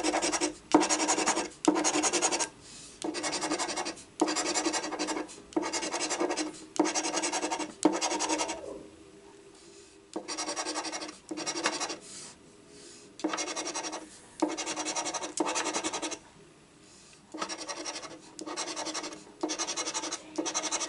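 A large metal coin scraping the coating off a paper scratch-off lottery ticket in a run of repeated strokes, each about a second long with short breaks between, pausing longer about nine seconds in and again around sixteen seconds.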